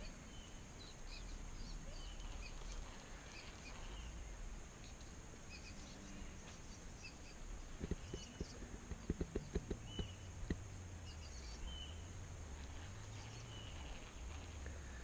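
Small birds chirping on and off, short high calls scattered over a quiet outdoor background. About eight to ten seconds in there is a run of soft knocks.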